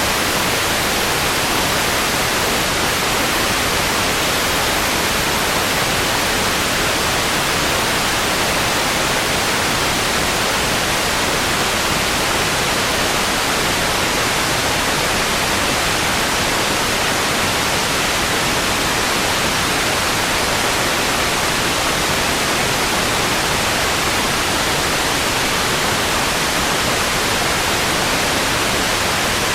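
Analog television static: a steady, even hiss of snow-screen white noise with no changes or breaks.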